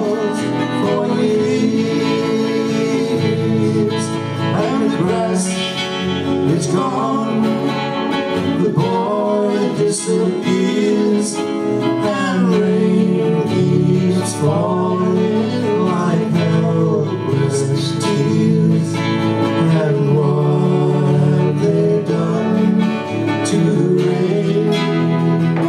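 Two acoustic guitars strummed together while two men sing a folk song into microphones.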